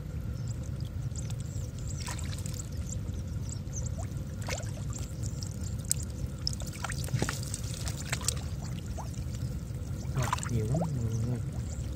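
Hands sloshing and groping through shallow muddy water, with scattered wet splashes and drips as they search the mud for climbing perch, over a steady low hum.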